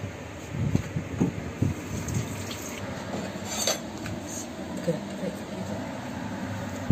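Kitchen handling sounds: a few soft knocks in the first two seconds and a sharp clink about three and a half seconds in, as the dishes, the plastic cutting board and the cut stuffed eggplant are moved about.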